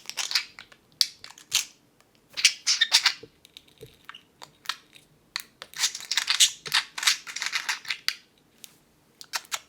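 Budgerigar chattering in short, raspy, high-pitched bursts with clicks between, the scratchy warble of a budgie mimicking speech.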